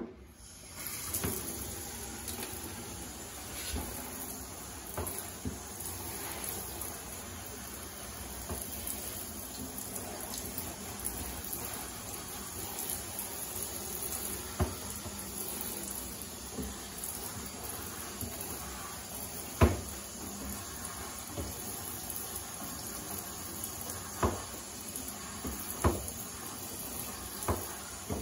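Handheld shower head spraying water onto a potted spider plant in a bathtub. The spray starts about a second in and runs steadily. A few sharp knocks are scattered through it, the loudest about two-thirds of the way in.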